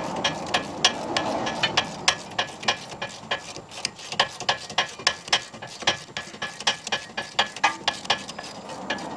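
Hand ratchet wrench clicking in a steady quick run, about four to five clicks a second, as a 19 mm brake caliper bracket bolt is spun out.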